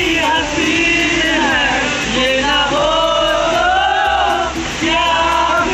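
Men singing a song together, with long notes that bend in pitch.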